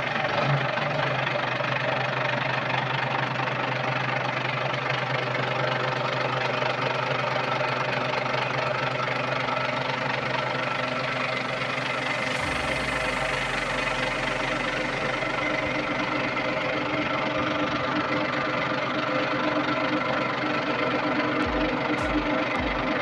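Volvo Penta TWD121 six-cylinder turbocharged diesel engine running steadily at a constant speed.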